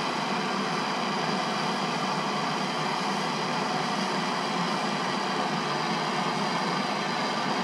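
Hand-held MAP gas torch burning with a steady hiss while its flame heats a copper pipe fitting for soldering.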